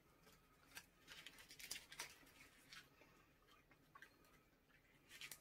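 Faint chewing of a soft chewy candy: small wet clicks and mouth smacks, clustered in the first half and again briefly near the end.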